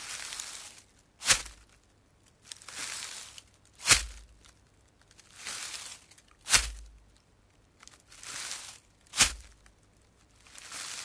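Slow footsteps on a forest floor of leaves and soil, about one step every 1.3 seconds. The steps alternate between a sharp crunch and a longer, softer rustling scuff.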